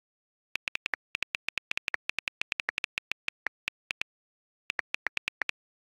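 iPhone on-screen keyboard click sounds as a message is typed: a quick run of short, crisp taps, several a second, with a brief pause about four seconds in.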